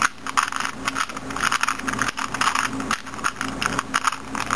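A 2x2 Rubik's cube being turned quickly by hand through a sequence of moves, its plastic pieces clicking and rattling in rapid, irregular succession.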